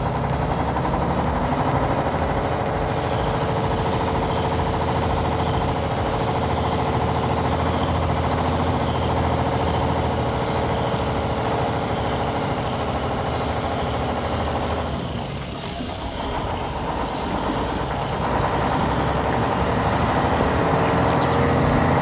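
Motor running steadily, with a short drop in level about fifteen seconds in.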